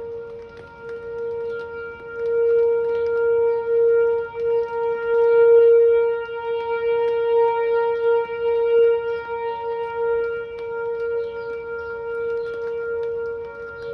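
Whelen 4004 electronic tornado siren sounding a steady, unwavering alert tone, swelling louder and fading again as it plays.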